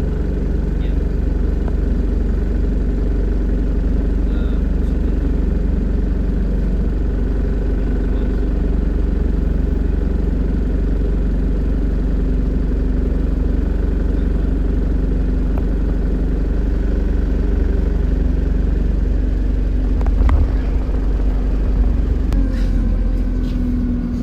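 Alexander Dennis Enviro200 single-deck bus running along, a steady low drone of engine and road noise with a pitched hum that grows stronger near the end.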